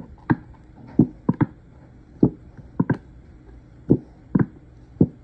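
Bottle of Sweet Baby Ray's honey barbecue sauce being squeezed into a bowl, sputtering out in about ten short, sharp, irregular squelching pops.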